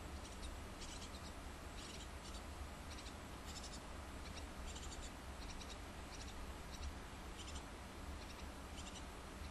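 Tit nestlings in a nest box giving faint, high-pitched chirps in short quick trills, about one a second, over a low steady hum.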